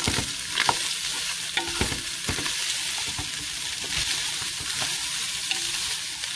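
Ground beef, onion, carrots and bell pepper sizzling in a hot pan while a utensil stirs them, with scattered knocks of the utensil against the pan.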